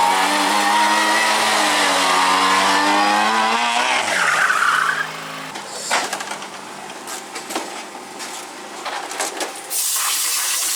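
Rally car engine at high revs that drop sharply about four seconds in, followed by a brief squeal, then quieter scattered knocks and clatter and a loud hiss near the end.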